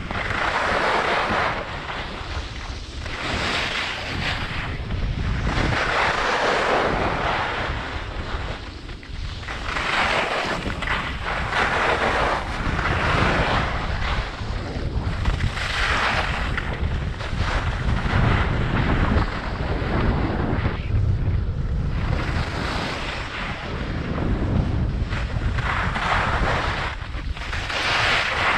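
Wind rushing over a GoPro's microphone during a downhill ski run, with the hiss of skis scraping over packed snow swelling and fading every two to three seconds as the skier turns.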